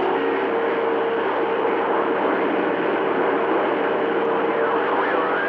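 CB radio receiver hissing with steady static from a weak, noisy signal, a faint steady tone running under the hiss.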